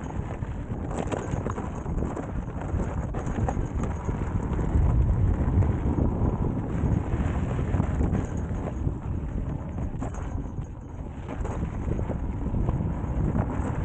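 Wind rumbling on the microphone while the Begode Extreme electric unicycle's tyre crunches and knocks over loose gravel and rocks on a dirt trail.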